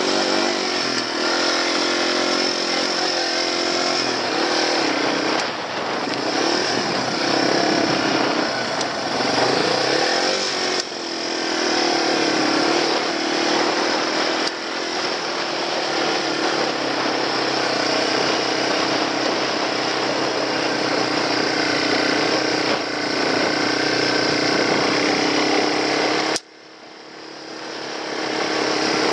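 Yamaha TW200 dual-sport's air-cooled single-cylinder four-stroke engine running under load up a dirt trail, its pitch rising and falling with the throttle. Near the end the sound drops away suddenly and swells back over a couple of seconds.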